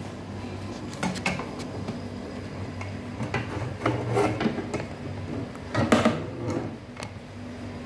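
Handling noise from a phone being picked up and held, with fingers over it: scattered clicks and rubbing, rustling bursts, loudest around six seconds in, over a steady low hum.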